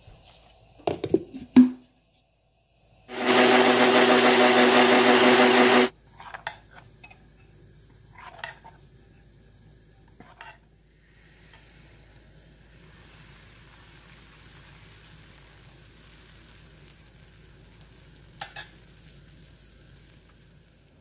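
An electric mixer-grinder runs loudly for about three seconds, grinding rice and water into batter, amid clinks of a spoon on a steel bowl. Later a faint steady hiss as the batter cooks on a hot clay pan.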